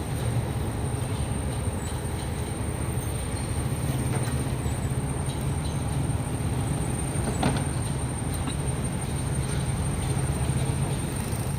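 A heavy engine running steadily with a low rumble, with a faint click about seven and a half seconds in.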